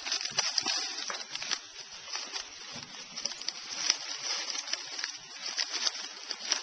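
Pet rat gnawing and crunching a hard pretzel: a quick, irregular run of small crisp cracks and clicks.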